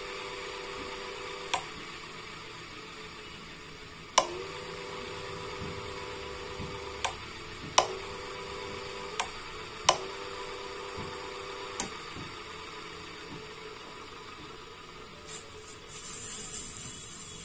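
A ceiling fan's motor humming on a rotary step regulator as the knob is clicked through its speed steps: seven sharp clicks, and at several of them the hum shifts as the fan's speed changes.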